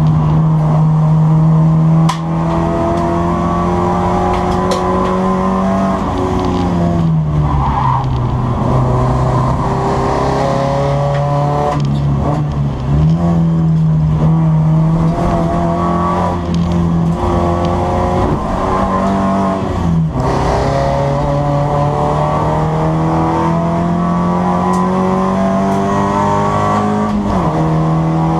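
BMW 318 race car's engine heard from inside its stripped, roll-caged cabin, running hard on track. The engine note climbs slowly through long pulls and changes pitch sharply a few times as the driver lifts off and changes gear for corners.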